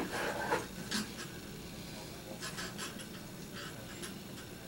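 Leather glove lacing being worked and pulled through the glove's lacing holes: faint scratchy rubbing and rustling, with a couple of light ticks in the first second.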